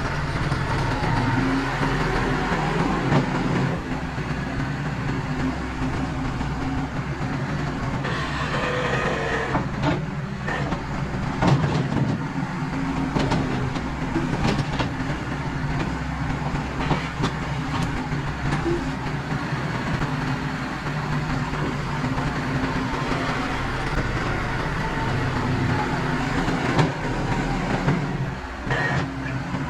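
Farm tractor engine running steadily while mucking out the shed, with scattered clanks and scrapes from the loader working the muck off the floor.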